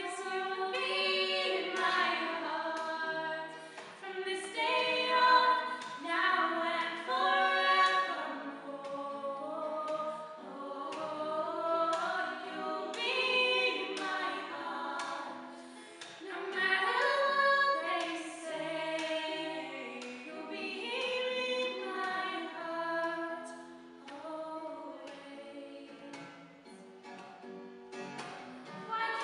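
Three women singing a slow ballad in harmony, accompanied by an acoustic guitar.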